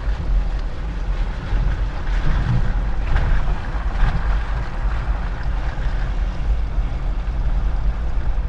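Wind buffeting the microphone: a steady rushing noise with a choppy low rumble.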